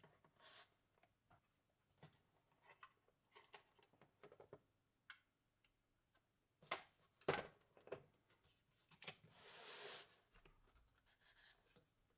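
Faint handling noises from a Noctua NH-U12A tower cooler with its fans attached as it is turned and fitted over the motherboard: scattered small clicks and taps, two sharper knocks about seven seconds in, and a short rustle a few seconds later.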